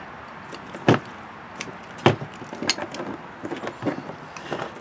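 Hand cutter closing on rubber fuel line: two sharp clicks about a second apart, then a run of smaller clicks and handling rustles.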